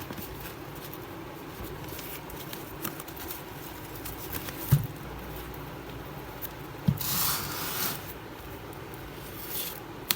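Packaging being handled while unboxing a mixer grinder: two dull thumps and bursts of rustling, the longest lasting about a second just after the second thump.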